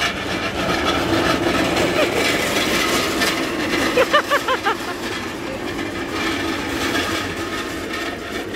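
A loaded service trolley rattling as it is pushed past on a paved walkway, over a background of diners' chatter. About four seconds in, a quick run of five short rising chirps.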